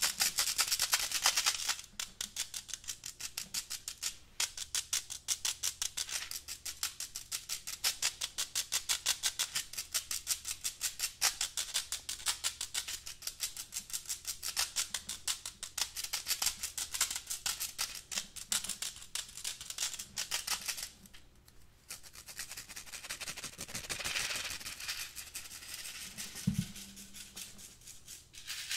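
Fingernails scratching rapidly over a black wire-mesh pen cup, a fast raspy rattle of several strokes a second. It pauses briefly about three-quarters of the way through, then goes on as a softer rubbing scratch, with a single dull knock near the end.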